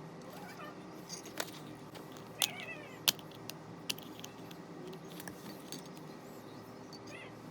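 A cat meows softly a few times, short calls that bend in pitch, about half a second, two and a half seconds and seven seconds in. Several sharp clicks and taps fall between them over a faint steady hum.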